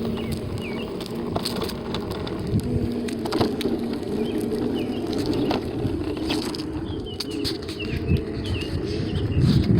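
Self-balancing hoverboard rolling over rough outdoor ground: a steady low rumble with scattered knocks, louder near the end. Small birds chirp in the background.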